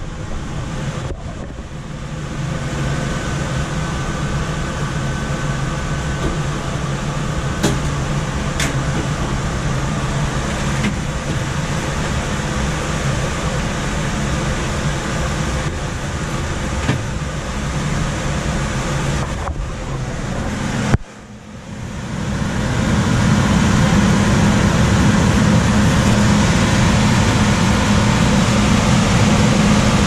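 Coleman manufactured-home gas furnace's constant-torque ECM blower running: a steady rush of air over a low hum. This is the loud blower noise the homeowner complains of, which the video puts down to the motor's speed tap being set on high. Just past two-thirds of the way the sound cuts out for a moment and comes back louder.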